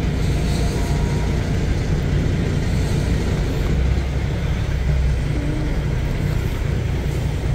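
Semi-truck's diesel engine running steadily, heard inside the cab as a low, even rumble.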